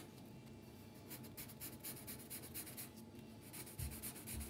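Graphite pencil scratching on paper in quick back-and-forth hatching strokes, shading the drawing, in two runs with a short pause about three seconds in. A couple of soft low thumps come near the end.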